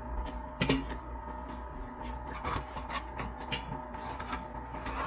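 Table knife and fork cutting lobster tail meat, scraping and clicking against a plate in irregular strokes, with a sharper clack about half a second in. A faint steady hum runs underneath.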